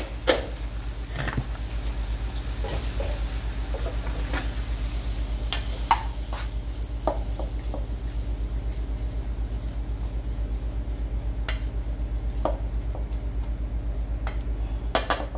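A steady low hum with a fast pulse, over which a few light clinks and knocks of metal pans and lids are heard on an electric stovetop, with a brief faint sizzle.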